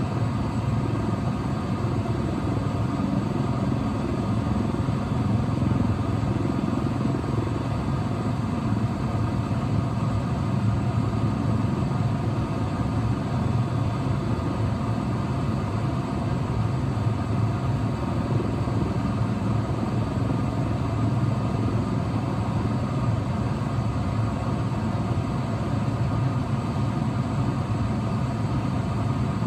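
Helicopter hovering low over the ground, its rotor and turbine engines making a steady, unbroken noise.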